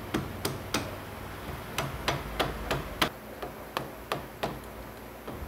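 Rubber mallet tapping on the end of a golf cart's front leaf spring to slide it onto its mount and line up the bolt hole: a series of sharp taps, two to three a second, with a pause about a second in.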